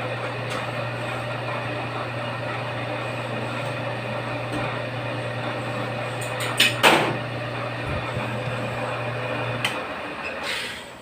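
Milling machine running steadily while drilling small holes with a small drill bit, with a brief louder scrape about two-thirds of the way through.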